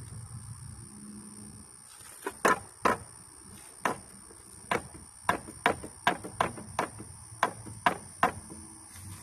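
About a dozen sharp knocks on the wooden boards of a bench swing being taken apart, coming at an uneven pace from about two seconds in.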